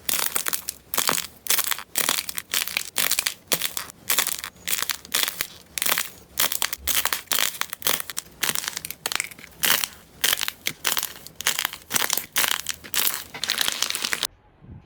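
Crunchy slime being pressed and squeezed by hand, giving crisp crackling crunches about three times a second. The crunching stops abruptly near the end.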